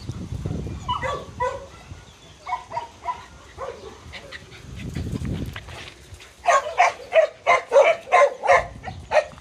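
Small dogs barking: a few scattered high yips in the first seconds, then a fast run of loud, high barks, about three to four a second, from about two-thirds of the way in. Two low rumbles come earlier, at the start and near the middle.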